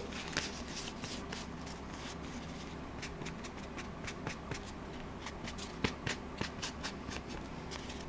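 Ink blending tool dabbed and swiped along the edges of a paper collage card to distress them with ink, a run of quick, irregular scratchy strokes with the card handled between them.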